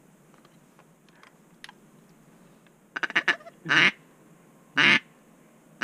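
Hand-blown duck call: a quick run of short notes about three seconds in, then loud quacks about a second apart, calling to an incoming duck.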